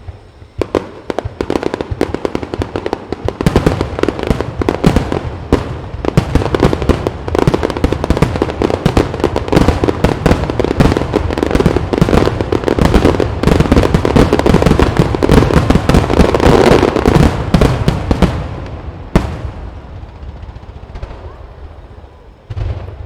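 A grand star mine: a rapid-fire barrage of aerial firework shells bursting in dense, overlapping bangs and crackles. The barrage builds to a steady peak, then thins out near the end with one last sharp bang.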